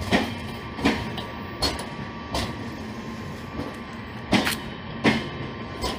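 Indian Railways LHB passenger coaches rolling past slowly on arrival, their wheels knocking over the rail joints in sharp clacks about every three-quarters of a second, over a steady rolling rumble.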